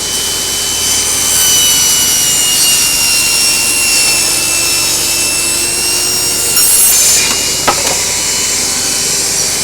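Table saw running off an inverter generator and ripping through a wooden shelf board: a loud, steady high whine with the blade's rasp in the wood, its pitch sagging slightly under the load. A single sharp knock comes near the end.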